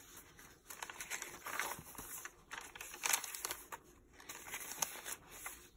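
Paper pages of a handmade junk journal being turned and smoothed by hand: quiet, irregular paper rustles and soft brushing sounds, several in a row.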